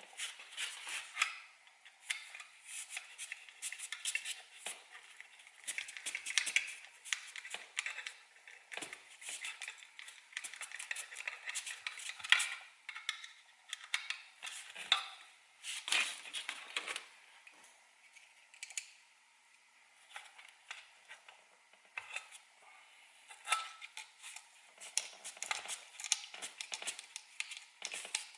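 Irregular clinks, clicks and rattles of small metal hardware and hand tools being handled while screws are fitted into a plastic camera mount.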